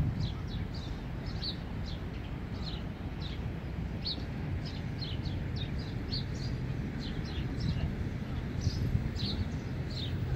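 Small birds chirping, many short high chirps a second in a steady chatter, over a constant low background rumble.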